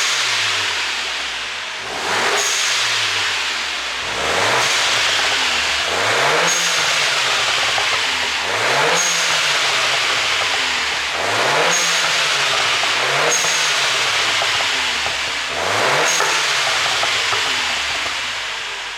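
2010 MINI Clubman John Cooper Works' turbocharged 1.6-litre four-cylinder engine being blipped over and over, about eight quick revs roughly two seconds apart, each rising and then falling back. The engine runs an ECU tune set up for exhaust pops on the overrun.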